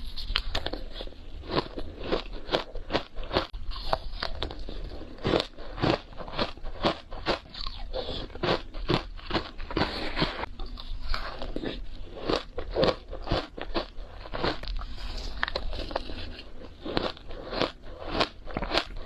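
Close-up chewing and crunching of matcha shaved ice, many sharp, icy crunches in quick irregular succession.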